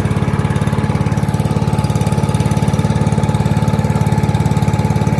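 Troy-Bilt TB130 XP push mower's single-cylinder engine running steadily just after starting on one pull, brought back to life by a new spark plug, a cleaned carburetor and starting fluid.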